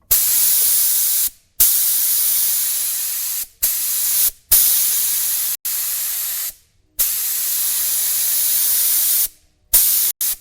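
Paint spray gun hissing as its trigger is pulled and released, in about eight bursts of up to two seconds with short silences between, spraying primer or finish on cabinets.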